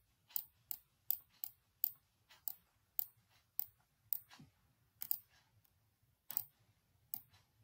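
Computer mouse button clicking repeatedly, a sharp click every third to half second with some in close pairs, as zeros are drawn one after another on an on-screen whiteboard.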